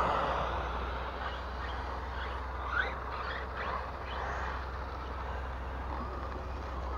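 Battery-powered radio-controlled trucks driving through snow, motors whirring, with a few short rising whines as the throttle is worked, over a steady low rumble.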